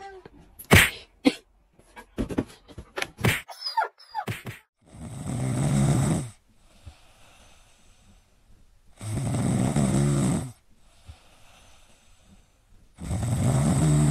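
A cat snoring: three long, rattly snores about four seconds apart. Before them come a few sharp taps and knocks.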